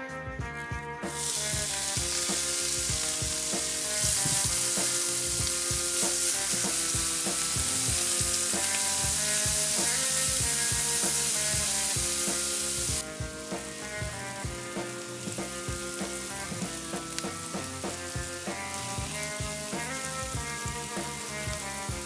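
Chopped garlic, dill and parsley sizzling in hot olive oil in a frying pan, the sizzle starting about a second in as they hit the oil, strongest at first and dropping to a lower sizzle about halfway through.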